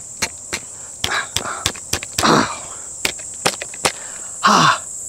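A steady high insect trill, with a series of light clicks and knocks from a rifle being handled and two brief rustles.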